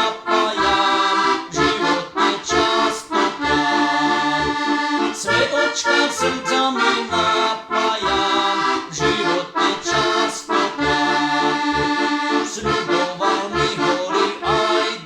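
Heligonka (diatonic button accordion) playing a folk-song melody in chords over a rhythmic, evenly repeating bass accompaniment.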